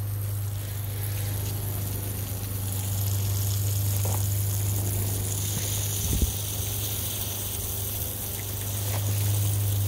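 Garden watering spray: a steady hiss of water spraying onto plants and a fence, a little stronger through the middle, over a steady low hum.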